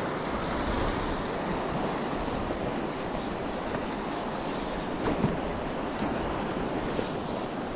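Small waves washing and lapping in shallow sea water, with wind buffeting the microphone. A brief knock about five seconds in.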